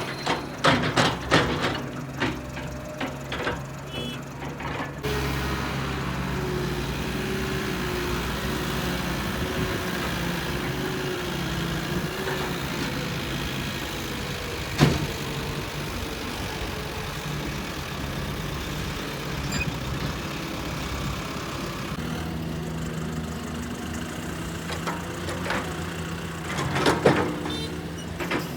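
Sumitomo S265EA excavator's diesel engine running steadily, with a wavering whine through the middle stretch. Bursts of clattering impacts come near the start and again near the end, typical of a bucket load being dumped into a truck, and there is a single sharp knock about fifteen seconds in.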